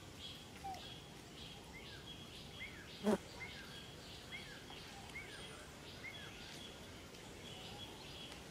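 Outdoor ambience: a bird repeats short falling whistled notes for a few seconds, over a high chirp that pulses about twice a second. A single sharp click sounds about three seconds in.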